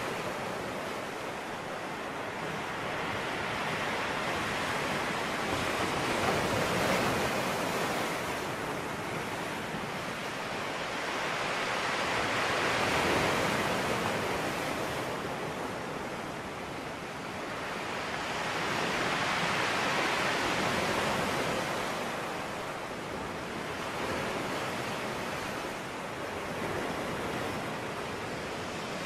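Rushing noise of surf, swelling and ebbing about every six to seven seconds as waves come in and draw back.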